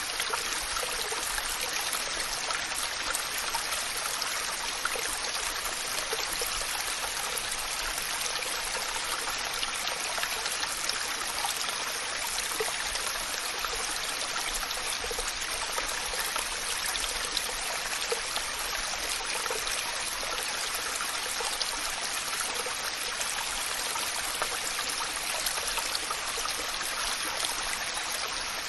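Waterfall: a steady, even rush of falling water, with small splashes and trickles flecked through it.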